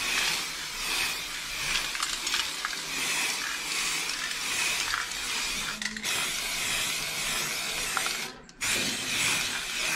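Nikavi matte black aerosol spray paint can hissing as the nozzle is held down in long sprays, with a brief break about six seconds in and another near the end as the nozzle is released and pressed again.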